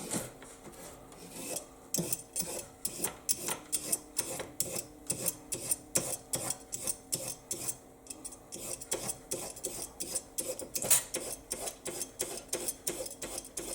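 Vegetable peeler scraping down a raw carrot, shaving off thin strips in quick repeated strokes, about two to three a second, sparser at first.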